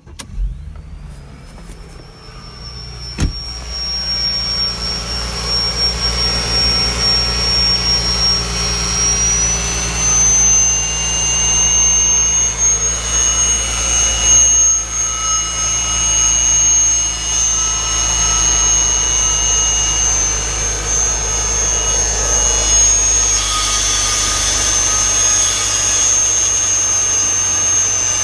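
Mercedes-Benz GLK 300's V6 engine starting and idling, with a steady high-pitched whistle over the engine note, the unwanted noise being shown. The whistle climbs in pitch just after the start and rises again about ten seconds in; a sharp click comes about three seconds in.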